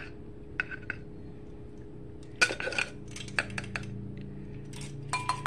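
Measuring spoon clinking and tapping against a bowl in several quick clusters, with a short ringing clink near the end, over a low steady hum.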